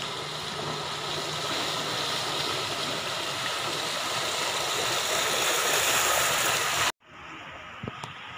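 Bicycle wheels splashing through shallow floodwater, a steady rushing spray that grows louder as the bikes come close. It cuts off abruptly about seven seconds in, leaving a quieter hiss of water with a couple of small knocks.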